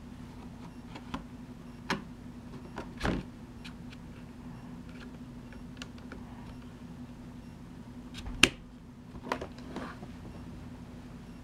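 Scattered plastic clicks and knocks as the battery-compartment cover and its retaining pin are handled on an upturned RC short-course truck. The sharpest snap comes about eight seconds in. A steady low hum runs underneath.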